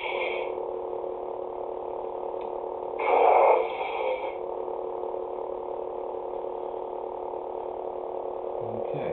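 Lightsaber sound board (Crystal Focus 6.1) playing through the hilt's built-in speakers: an ignition sound as the blades light, then a steady electric hum. About three seconds in comes a louder burst of effect sound before the hum settles again.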